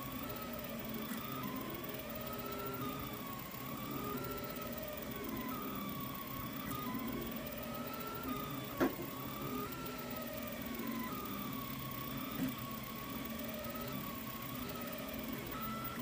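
Delta 3D printer at work: its stepper motors whine in a pitch that glides up and down as the print head sweeps back and forth, over a steady lower hum. A single sharp click is heard about nine seconds in.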